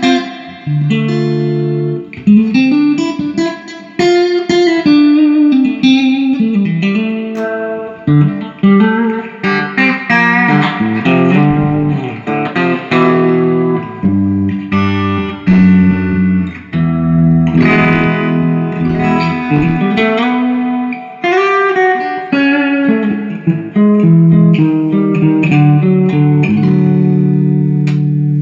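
Electric guitar played through a 1980 silverface Fender Pro Reverb, a 2x12 tube combo amp, freshly recapped with new power tubes. It plays chords and single-note lines with some bent notes, ending on a long sustained chord: the repaired amp working normally.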